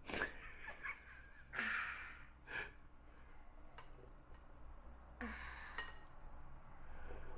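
A toddler slurping soup from a spoon: four short, hissy sips spread over several seconds.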